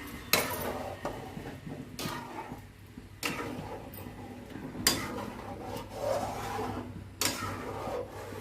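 Rasping, scraping sounds with about five sharp knocks spread through.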